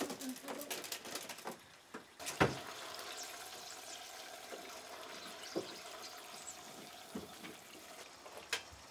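Mentsuyu sauce going into a hot frying pan of fried eggs: a sharp knock about two and a half seconds in, then a steady sizzle.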